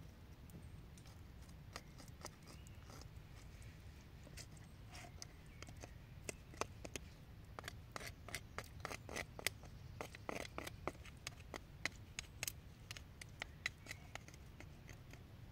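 Knife blade scraping the inside of a split bone, a run of quick sharp clicks and scrapes that grows busiest from about six seconds in.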